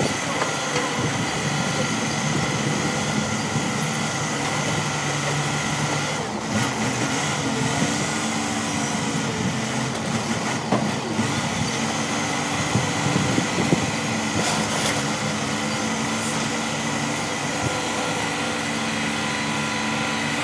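Diesel engine of a grapple-loader truck running steadily while its hydraulic boom and claw load yard debris, with a steady high whine above the engine. A few knocks come in the second half.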